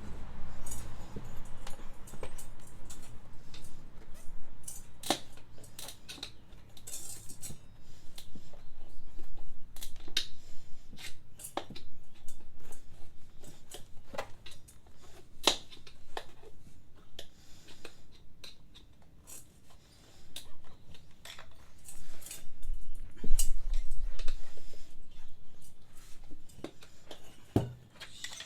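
Hand tools and metal parts clicking, tapping and clinking at irregular intervals during work on a scooter's front wheel, with a louder clatter about two-thirds of the way through.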